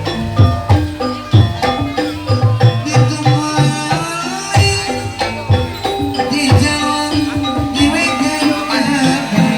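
Live kuda lumping accompaniment music: a hand drum beating in a quick, uneven rhythm over ringing gamelan-style metallophone notes and a wavering melody line.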